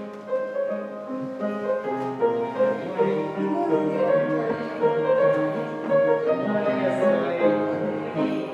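Instrumental music led by piano, slow held notes changing steadily.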